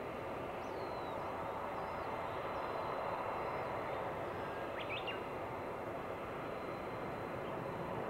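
Boeing 777-200ER's jet engines on touchdown and landing roll-out: a steady, broad rush of noise that grows slightly louder. Small birds chirp faintly over it several times.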